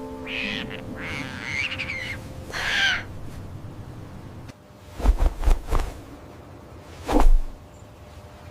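A few harsh, crow-like calls, then a short cluster of low thumps about five seconds in and another thump about seven seconds in.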